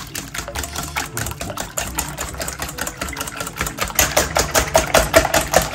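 Egg mixture being beaten fast in a stainless steel bowl, the utensil clicking against the metal in a quick, even rhythm that grows louder in the second half.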